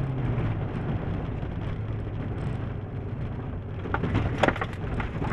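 Suzuki Swift GTI rally car heard from inside the cabin at speed: engine running steadily under tyre and road noise. About four seconds in, as the car runs onto loose gravel, a quick clatter of stones strikes the underbody and wheel arches.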